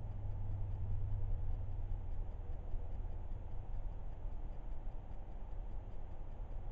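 Heavy rain heard from inside a building: a steady, muffled rushing noise, with a faint, even ticking running through it.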